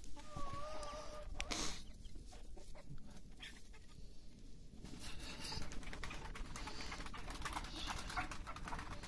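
Farmyard birds calling, hens and pigeons, with one drawn-out wavering call about a second long near the start, over scattered light clicks.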